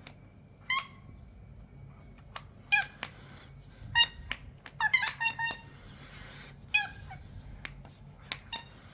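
Motion-activated pet sound ball toy giving short squeaky electronic chirps as it is rolled, about six of them with several in quick succession around the middle, plus a few light clicks near the end.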